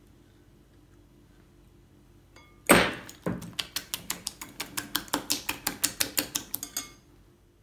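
A sharp knock about two and a half seconds in, then a coil whisk beating eggs and oil in a glass bowl, its wire clicking against the glass about seven times a second for some four seconds.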